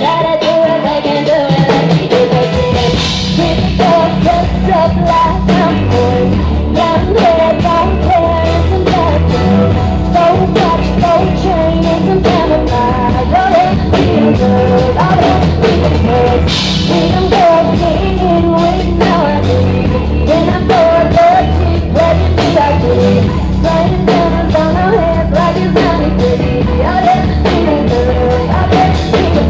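Live pop song from a small band: a woman sings into a microphone over drums and keyboards. A deep bass part comes in about two and a half seconds in.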